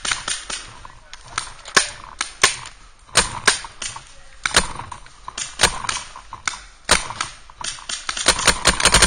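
Paintball markers firing: scattered single shots and short strings of sharp pops, with a rapid string of shots near the end.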